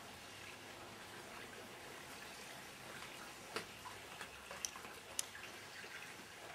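Faint steady room hiss picked up by a handheld camera's microphone. Three short sharp clicks come a little past halfway.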